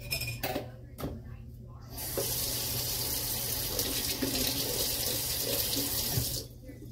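Water running steadily, starting about two seconds in and cutting off suddenly near the end, after a few light knocks.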